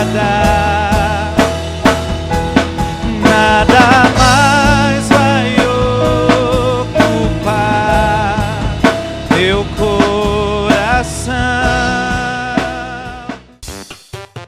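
Live worship band music: a drum kit keeps a steady beat under a sustained melody line with vibrato. Near the end the band drops out, leaving a sparse pulsing beat.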